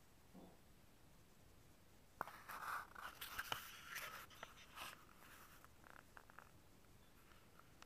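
Handling noise from the camera being moved: a sharp click about two seconds in, then scratchy rustling and small clicks for about three seconds, with near silence either side.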